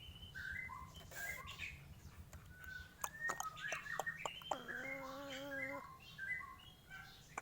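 Pet crow making odd vocalizations: a run of short squeaky and whistled notes mixed with sharp clicks. About halfway through it gives one longer, steady nasal call lasting just over a second.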